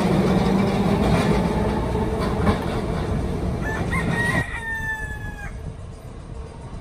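A TECO Line electric streetcar running, a steady low drone with rail noise, cuts off sharply about four seconds in. Around the same moment a rooster crows once, a single drawn-out call of about a second and a half.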